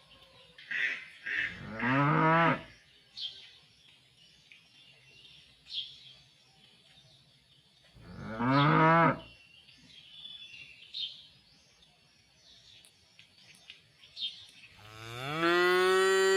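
Cows mooing: three long moos, each rising and then falling in pitch, the first about a second in, the second around the middle, and the third starting near the end.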